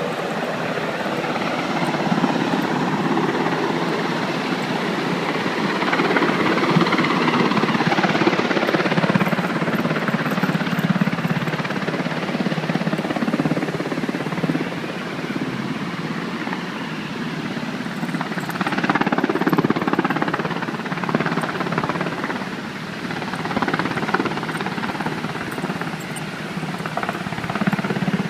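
Helicopter hovering close overhead during a supply drop: a loud, continuous rotor and engine noise that swells and eases, with the rotor downwash buffeting the microphone.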